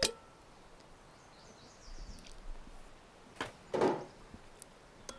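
Quiet outdoor background with faint bird chirps about two seconds in, then two short scraping sounds a little after three and a half seconds, the second louder.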